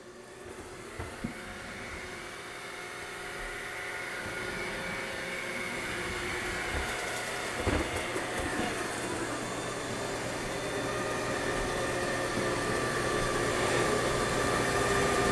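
ECOVACS Deebot 500 robot vacuum running, its motors whirring with a steady whine that grows louder as the robot comes closer. A few short knocks about a second in and again around the middle.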